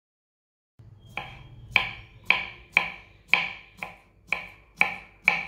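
Kitchen knife chopping a peeled cucumber into small pieces on a wooden chopping board: a steady run of sharp knocks, about two a second, starting about a second in.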